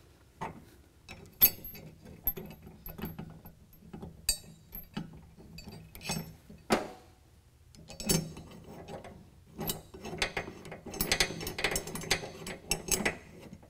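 Steel bed rail bracket and its nut plate and bolt clicking and clinking as they are fitted by hand. Scattered single clicks build to a run of rapid clicking near the end.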